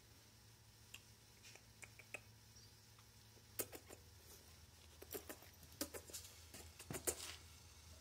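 Electric immersion heater in a plastic bucket of water giving faint, irregular ticks and crackles over a low steady hum, the small bubbles forming and collapsing on the hot element as the water heats. The crackles come more often and louder in the second half.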